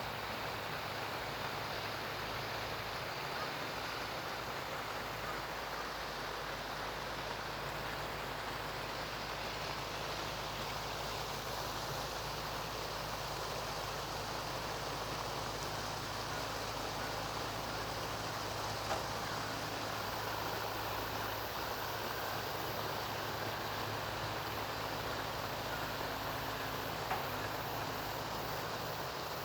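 An engine running steadily with a low hum, over an even rushing noise, with two faint knocks about two-thirds of the way through and near the end.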